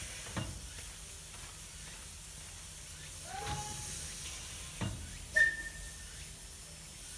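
A 1912 Baldwin steam tank locomotive standing with steam hissing steadily, and a few sharp knocks. About five seconds in comes the loudest sound, a brief thin high-pitched tone, after a shorter, lower rising tone a couple of seconds earlier.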